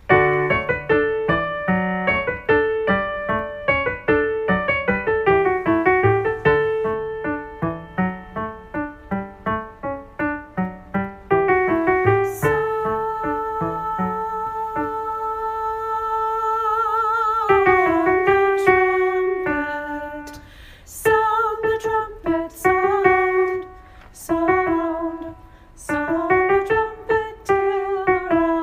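Piano plays an introduction of separate struck notes. About twelve seconds in, a voice enters with a long held note with vibrato, then sings the alto line in phrases over the piano accompaniment.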